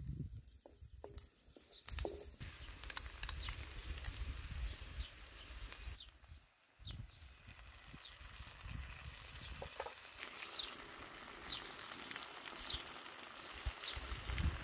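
Chopped food sizzling in oil in a large black pan over a wood fire, with a wooden spoon stirring and scraping through it. The sizzle drops out briefly just after halfway.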